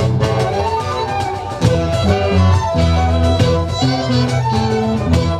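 Live folk band playing a traditional tune: several fiddles and flutes play the melody together over a bass line.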